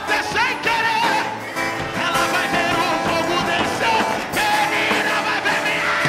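Live worship music: a band playing steadily with a voice singing over it in wavering, drawn-out lines.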